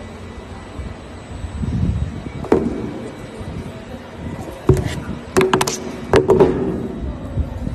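Several sharp knocks and clatters of hard objects over a low steady rumble, the knocks coming irregularly and clustering in the second half, some with a brief ring.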